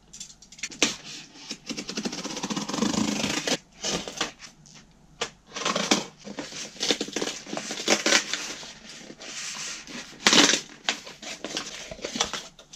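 Scissors cutting through a cardboard shipping box and its tape, then the cardboard being torn and pulled open: irregular scraping, crackling and tearing, with a few sharp cracks and short pauses between.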